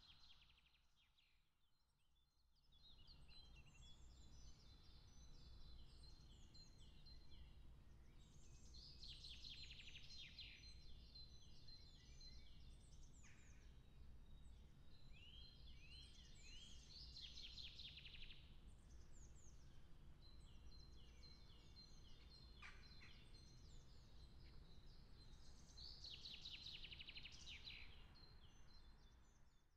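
Faint songbird song: short chirping phrases repeated again and again, with three louder fast trills spread through, over a low steady rumble. It begins after a near-silent first two seconds.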